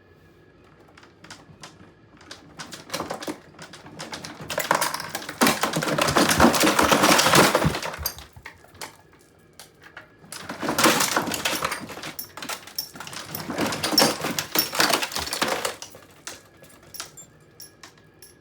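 Dollhouse being shaken, its miniature furniture and small pieces rattling and clattering against each other. The clatter builds into two long dense bouts, of about three and five seconds, with scattered clicks and knocks before, between and after.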